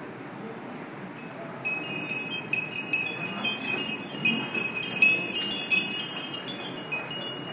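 Japanese glass wind chimes (fūrin) tinkling as their paper strips swing: a quick, irregular jumble of high, clear pings, each clapper striking its glass bell, starting about two seconds in and dying away near the end.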